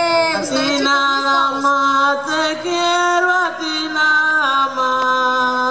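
Singing for a Panamanian congo dance: voices chant in long held notes that slide between pitches.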